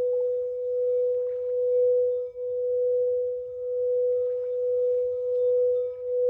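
Singing bowl sounding one steady, sustained tone with faint overtones, its loudness swelling and dipping about once a second in a slow wavering beat.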